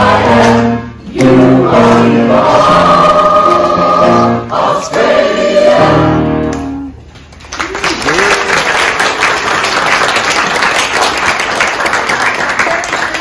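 A mixed choir of men and women singing the last held chords of a song, ending about six and a half seconds in. After a short pause the audience applauds until near the end.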